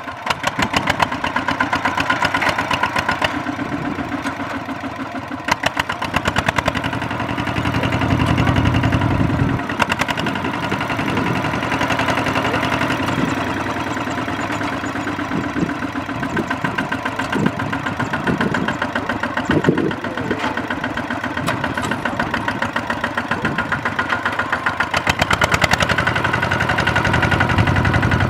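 Kubota ZT140 single-cylinder diesel engine of a two-wheel walking tractor chugging steadily. It works harder and louder about eight seconds in and again near the end as the tractor struggles with its wheels bogged in sticky mud.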